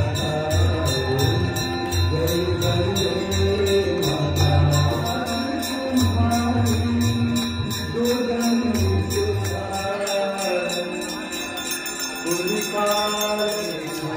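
Hindu aarti devotional music: a chanted, sung hymn with bells ringing in a steady rapid rhythm and a low drum beat that drops out about ten seconds in.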